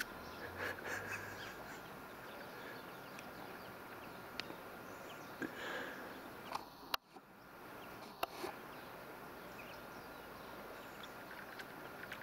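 Rural outdoor ambience by a frozen pond: a steady hiss with scattered faint bird calls and a few sharp clicks. The sound drops out briefly about seven seconds in.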